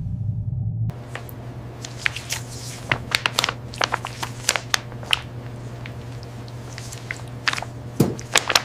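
A low rumble cuts off about a second in. Then comes a run of irregular crunches and crackles, sharper and denser near the end, over a steady low hum.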